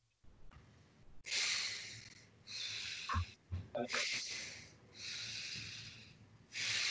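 Forceful breaths, five in a row at about one a second, from a person pressing the palms against the forehead in an isometric neck-strengthening exercise.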